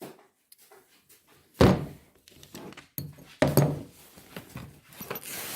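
A few dull thunks and knocks of heavy steel wrench pieces being handled and set down, the loudest about a second and a half in and more around three and a half seconds, with rustling handling noise near the end.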